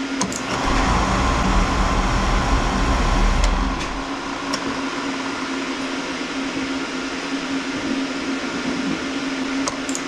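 Oil burner blower motor switched on with a click but failing to start, giving a low electrical hum instead of spinning up: the sign of a bad, stalled blower motor. The loud hum drops away about four seconds in.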